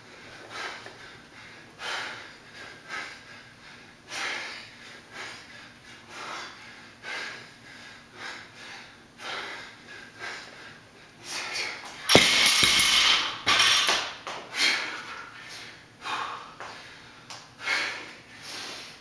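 A man breathing hard and rhythmically, about one breath a second, while doing barbell thrusters. About twelve seconds in, a 100-pound barbell with rubber bumper plates is dropped onto the concrete floor with a loud thud and a rattle lasting over a second, and the hard breathing then goes on.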